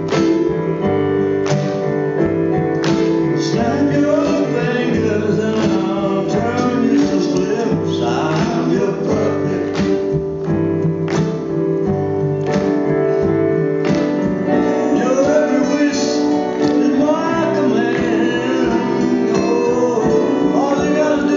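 Slow soul song played live: a Yamaha stage keyboard plays held chords, with a man singing over it.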